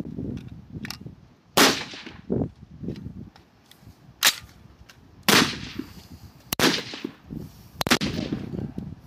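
Rifle shots on a high-power match firing line: five sharp reports in about six seconds, several ringing on briefly with echo, and a fainter crack just before them.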